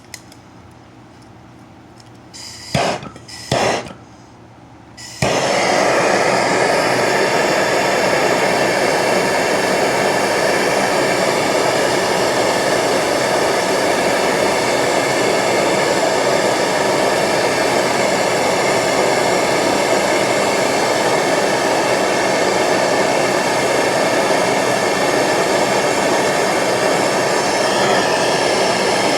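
MAP gas torch: two short loud bursts of gas hiss about three and four seconds in, then the torch lights and burns with a loud, steady rushing flame, heating a copper fitting for soldering.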